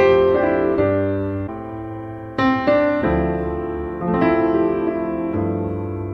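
Background piano music: notes and chords struck every second or so, each ringing and fading.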